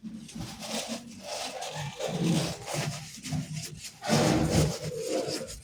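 Irregular rubbing and scraping: a kitchen towel wiping tomatoes and a plastic storage container as they are handled.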